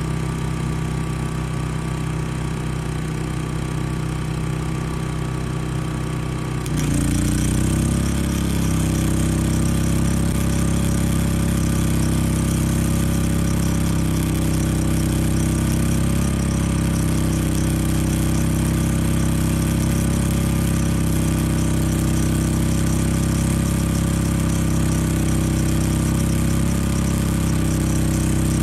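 Champion 3400-watt inverter generator running steadily, then about seven seconds in a Titanium Flux 125 flux-core welder, turned down to about two-thirds power, strikes an arc: the generator's engine speeds up under the welding load and the arc crackles and hisses continuously from then on.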